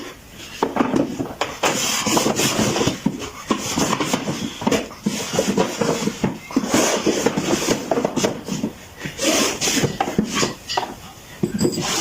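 Woodworking by hand: irregular knocks, scrapes and rubbing of wooden parts being worked and handled.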